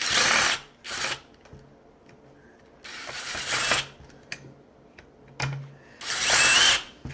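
Power drill/driver run in four short bursts to back out a screw from a reciprocating saw's housing, the last burst the loudest.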